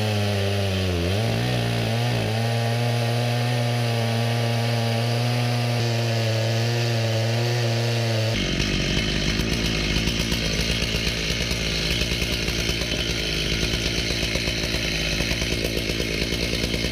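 Chainsaw on an Alaskan chainsaw mill running at speed, milling a deodar cedar trunk into planks. It holds a steady engine note for about eight seconds, then changes suddenly to a rougher, noisier sound.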